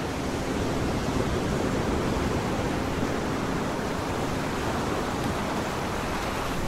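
Rushing water, a steady, even wash of noise without distinct splashes or impacts, as of a torrent pouring in.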